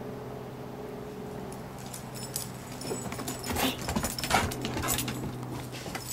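The metal tags on a vizsla's collar jingle and clink as the dog trots across a wooden deck, starting about two seconds in. A steady low hum runs underneath.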